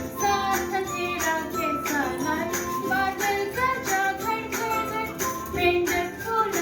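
Upbeat children's rhyme music: a sung melody over a steady, jingling percussion beat.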